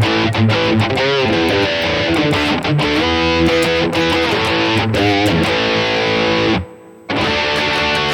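High-gain distorted electric guitar through a digital amp modeler, playing riffs and held notes with wide vibrato, with a brief full stop about seven seconds in.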